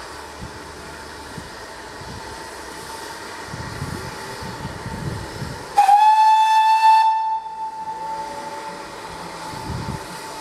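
Steam locomotive whistle: one loud, high single-note blast of about a second and a half, sliding up slightly as it opens. It sounds over a steady hiss, with some low rumbling before it.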